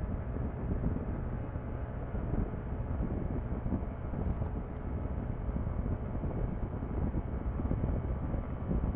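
Yamaha NMAX scooter's single-cylinder engine and CVT droning steadily while cruising at about 95 km/h, mixed with wind rush and tyre noise. A couple of faint ticks a little past the middle.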